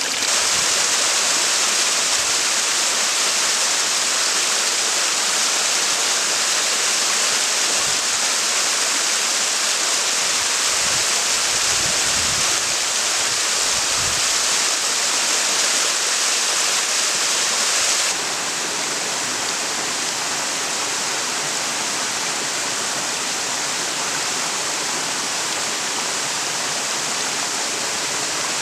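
Snowmelt mountain stream rushing and cascading over rocks, a steady rush of water. It drops a little in level about two-thirds of the way through.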